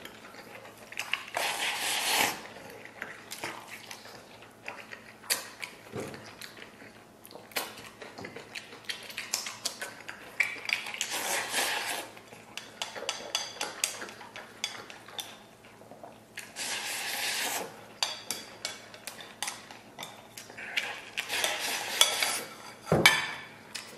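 Chopsticks clicking and scraping against a ceramic bowl while someone eats from it, with four slurping bursts of a second or two each as mouthfuls are sucked in, and chewing between them.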